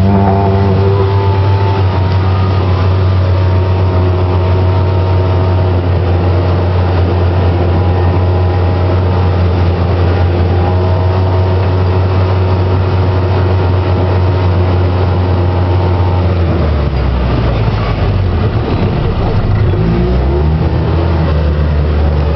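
ATV engine running close by at a steady speed with a low, even hum. About 17 s in its pitch drops and climbs again as the throttle changes, then it holds steady once more.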